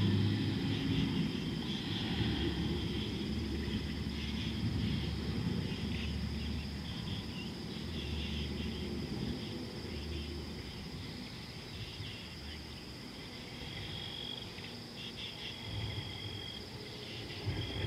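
Insects chirping and trilling in a steady high chorus, over a low rumble that is loudest at the start and fades away.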